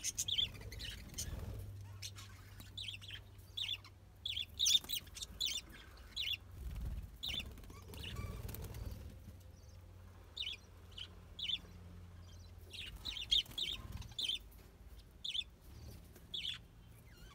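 A flock of budgerigars chirping: many short, high chirps in scattered clusters, with some fluttering of wings.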